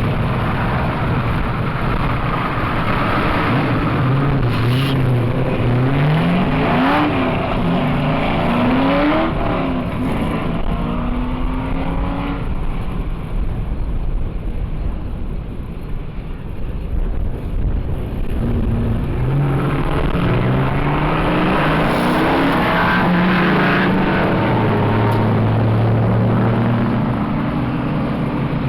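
Car engine accelerating through the gears: the pitch climbs and drops back several times as it shifts, eases off, then does it again before settling to a steadier run near the end.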